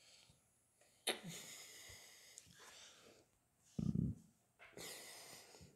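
A person breathing close to the microphone: a sharp, hissing breath about a second in, a short low sound near four seconds, and another hissing breath near the end.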